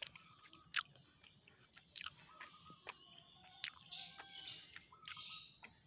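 Faint, scattered crisp crunches of dried kapok-flower bee pollen being chewed.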